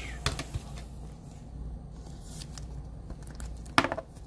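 Trading card being slid into a rigid clear plastic top loader: a few light plastic clicks and rustles, then a louder cluster of crackly clicks near the end.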